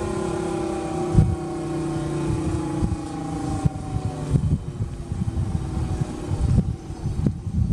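Federal Signal Thunderbolt 1003A outdoor warning siren winding down: its tone slowly falls in pitch and fades out about six seconds in, over a low gusty rumble.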